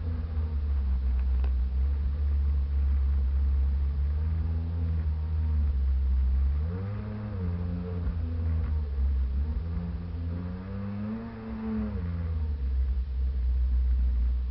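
Sea-Doo jet ski engine running under way over a heavy low rumble. Its pitch rises and falls twice as the throttle is opened and eased off, climbing about halfway through and again near the end.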